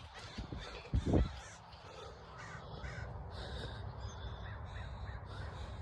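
Crows cawing, a series of short calls that pick up about two seconds in.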